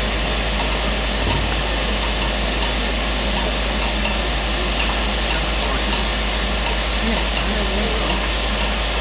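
Steady hissing rush of a steam locomotive, an LMS Black 5, with steam blowing and its vacuum ejector working while it is slowly turned on a vacuum-driven turntable, under a low steady rumble.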